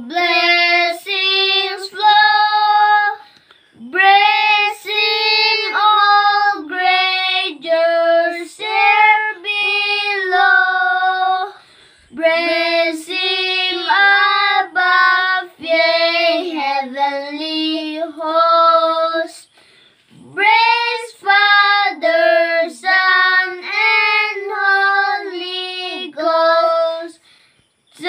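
Two young boys singing a hymn together, unaccompanied, in long phrases separated by short pauses.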